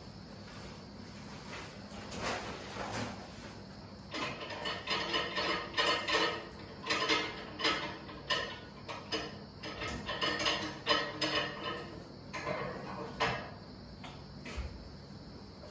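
Young African elephant feeding on a cut tree branch, with a busy run of crunching, snapping and knocking of twigs and wood as she pulls at it and chews. The noise is sparse for the first few seconds, busiest through the middle, and tails off near the end.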